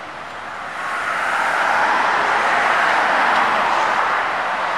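Street traffic noise from road vehicles, swelling about a second in and then holding steady.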